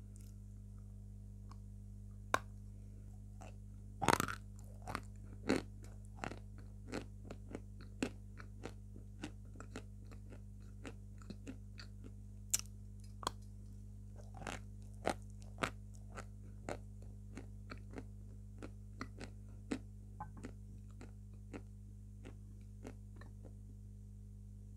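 A block of white edible chalk being bitten and chewed: irregular dry crunches, a few louder bites about 2, 4 and 12 seconds in, the rest softer and spread out.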